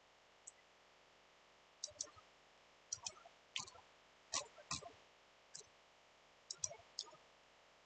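Computer mouse clicking: about a dozen sharp, irregular clicks, several in quick pairs, over faint room tone.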